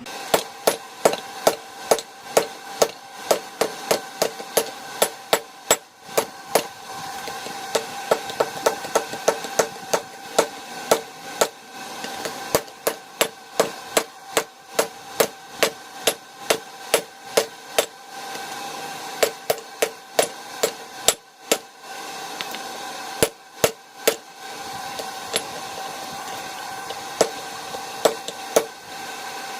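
Blacksmith's hammer striking hot steel rebar on an anvil, about two blows a second, each with a bright metallic ring. There are a few short pauses between runs of blows.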